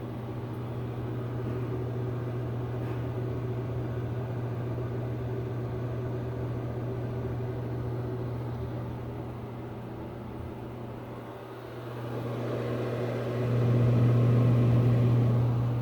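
Greenheck exhaust fan running, its motor giving a steady low hum with airflow noise, growing louder for a couple of seconds near the end.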